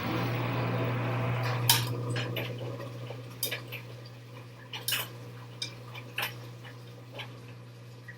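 Washing machine during its rinse cycle. A steady hum with a rushing, water-like noise slowly fades, broken by several sharp clinks.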